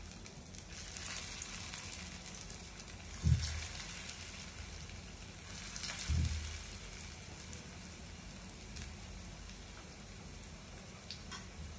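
Potato patties (aloo tikki) shallow-frying in hot oil in a pan: a steady sizzle with small crackles. Two dull thumps come about three and six seconds in.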